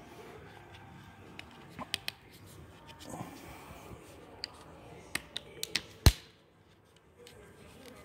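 Small clicks and taps of plastic and metal parts as a 2003 Honda CR-V outer door handle and its lock-cylinder retaining clip are handled. A run of quick clicks builds to one sharp snap about six seconds in, as the clip is worked onto the handle.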